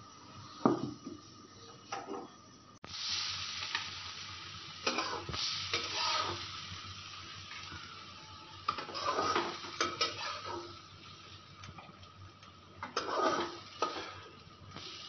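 Hot oil sizzling in a wok as fried diced potatoes are scooped out with a spatula, the spatula scraping and knocking against the pan and plate several times. The sizzling starts about three seconds in, after a few quieter knocks.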